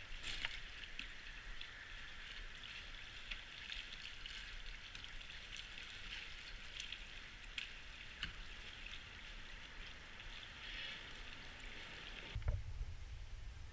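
Small waves lapping and splashing against a kayak hull and a concrete bridge piling, a steady hiss of water with scattered small splashes. Near the end it cuts off abruptly and a low rumble takes over.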